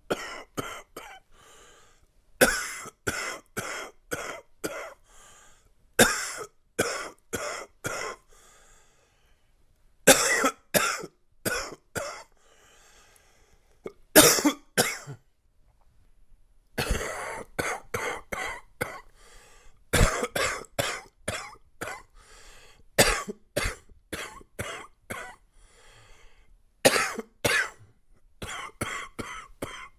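A man coughing in repeated fits of several sharp coughs each, with short pauses between fits. The coughs are chesty and congested, from a chest cold.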